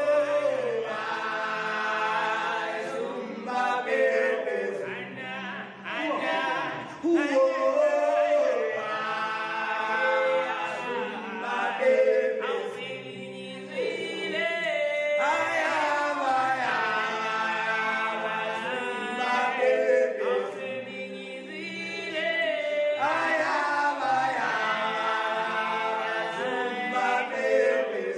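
Several voices singing together, choir-like, in about four long phrases separated by short breaks.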